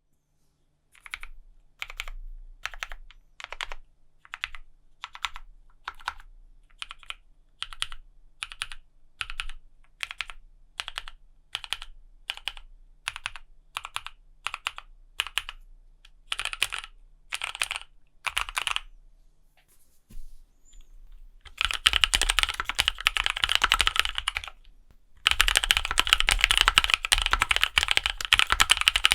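Custom 60% gasket-mount mechanical keyboard (KBDfans D60, HHKB layout) with lubed NovelKeys x Kailh Cream linear switches and ABS keycaps being typed on. For the first twenty seconds the keys are struck singly at an even pace, about two strokes a second. Then comes a burst of fast continuous typing, a short pause, and more fast typing.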